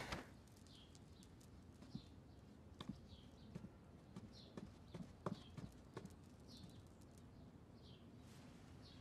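Faint footsteps on a wooden floor, irregular light taps as someone walks slowly across a room, over a quiet background with short high chirps, like a small bird, repeating every second or so.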